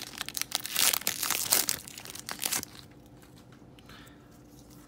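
Foil wrapper of a Pokémon Darkness Ablaze booster pack crinkling as it is torn open by hand, stopping a little over halfway through.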